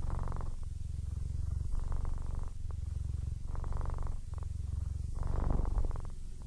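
A Siamese cat purring steadily and contentedly. The purr rises and falls with each breath in and out, about once a second, and is a little louder around five seconds in.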